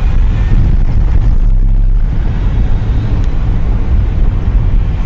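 A moving car heard from inside the cabin: a loud, steady low rumble of engine and tyre noise.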